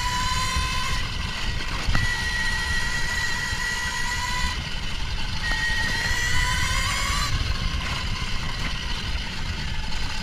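Kuberg Ranger electric off-road motorbike's motor and drivetrain whining while riding, the pitch shifting with speed and rising a little about six seconds in before dropping back. Underneath is a steady low rumble of wind and tyres on the trail.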